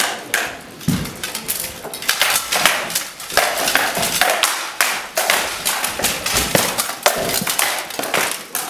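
Rattan weapons striking armour and each other in armoured combat: an irregular, rapid series of sharp clacks and knocks.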